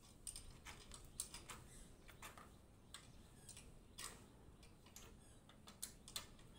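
Faint, irregular metallic clicks and taps as bolted steel shuttering is worked loose from freshly cast concrete columns.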